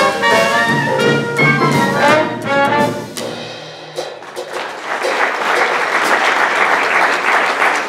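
Traditional New Orleans jazz band of trumpet, clarinet, trombone, piano, double bass and drums plays the final bars of the tune and stops about three seconds in. After a short pause, audience applause starts and goes on.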